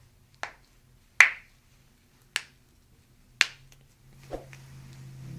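A series of sharp clicks, five in all, about one a second, over a faint low hum that grows louder near the end.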